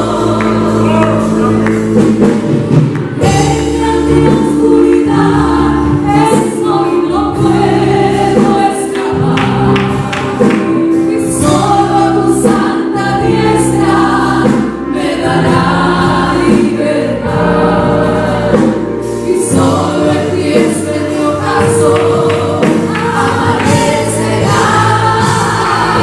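Two women singing a Spanish-language worship song live through microphones, backed by a band with guitar and a steady beat.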